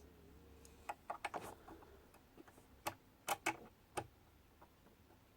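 Light metal clicks and taps of a bobbin case being worked into the shuttle race of a vintage Pinnock De Luxe zigzag sewing machine, as its protruding finger is lined up with the gap. A few clicks about a second in and several more around three to four seconds.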